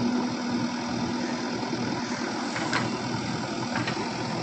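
Diesel engine of an earthmoving machine running steadily at idle, with a held low hum and two light clicks in the second half.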